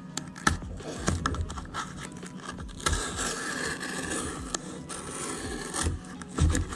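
Shipping package being opened by hand: scraping and rustling of the packaging, with scattered sharp clicks and a longer stretch of scraping from about three seconds in to about six.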